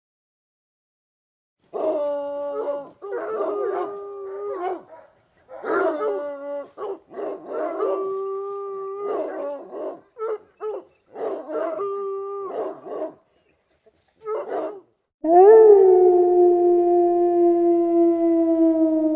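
A dog howling: a run of short wavering howls that hold and jump between pitches, then a pause. About 15 seconds in comes a single long, louder howl that slides slowly down in pitch over a faint steady hum.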